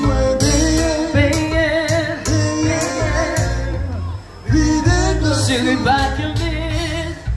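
A man singing live into a microphone over amplified backing music with a steady, pulsing bass, played through PA loudspeakers.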